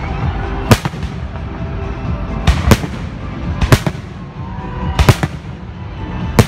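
Aerial firework shells bursting in a display: a series of sharp bangs, about eight, several coming in quick pairs.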